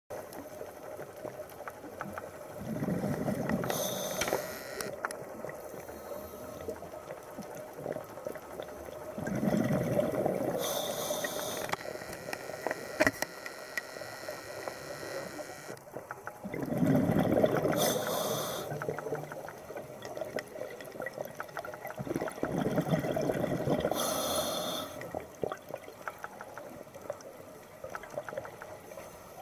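Scuba diver breathing through a regulator underwater: four breaths, about six to seven seconds apart, each a swell of bubbling with a short hiss from the regulator. Faint crackling between breaths.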